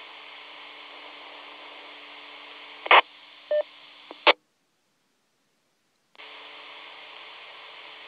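FM two-way radio receiver audio from a Motorola M-120 VHF mobile: a steady hiss with a steady hum from an open, unmodulated carrier. About three seconds in come a loud squelch burst, a short beep and a second burst, after which the squelch closes to silence for about two seconds before the hiss comes back.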